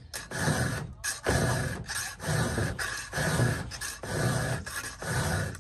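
Round chainsaw file being pushed through the cutters of a skip-tooth 3/8-pitch chain by hand, a steady rasping stroke about once a second, about six strokes in all.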